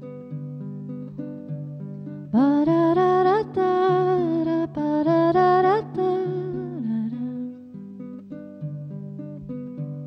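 Baritone ukulele playing picked notes, with a woman's wordless singing that slides up into its notes, coming in about two seconds in and dying away a little before seven seconds.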